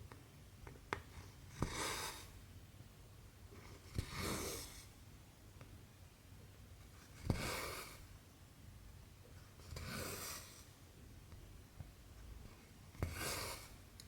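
A needle ticks through cross-stitch fabric, and then cotton thread is drawn through with a short rasping swish. This happens five times, about every two and a half to three seconds.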